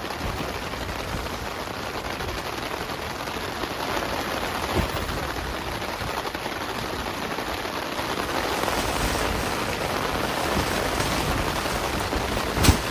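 Heavy rain falling steadily in a dense hiss, with a sharp knock about five seconds in and a louder knock near the end.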